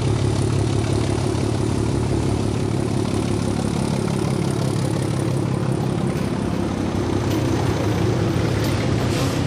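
ČKD T478.1 (class 751) diesel-electric locomotive passing under power, its turbocharged K6S310DR diesel engine running with a steady deep note over the rolling noise of the train. Freight wagons roll past after it, with a few clicks near the end.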